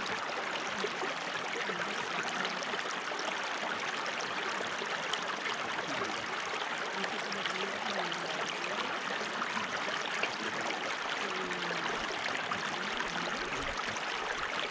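Running water in a stream, flowing steadily, with small gurgles now and then.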